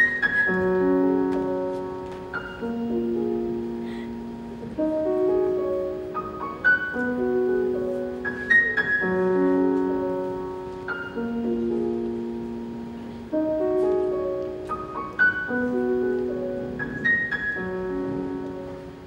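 Piano music: a slow phrase of held, overlapping notes that repeats about every four seconds.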